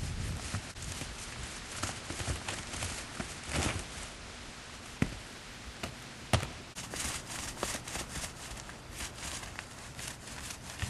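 Paint roller rolling liquid roof coating over asphalt shingles: a rough, scratchy rolling sound in repeated strokes, with two sharp knocks near the middle.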